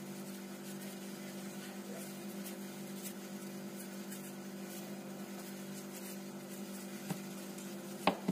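A steady low electrical hum, several fixed pitches held together without change, with a couple of faint taps near the end.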